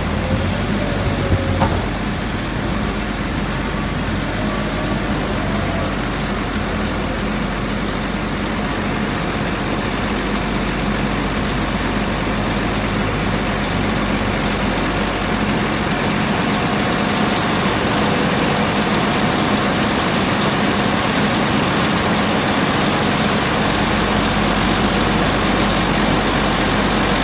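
Six-cylinder Deutz diesel of a Venieri VF18.63B articulated wheel loader running steadily under load as the machine digs, carries and lifts a bucket of manure.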